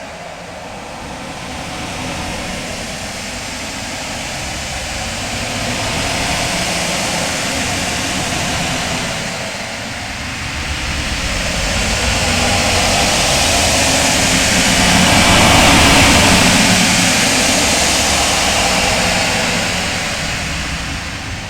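Very loud 'outer space' ambience sound effect: a dense rushing rumble, like a distant jet, that swells and ebbs, dipping about halfway through and growing loudest about three quarters of the way through.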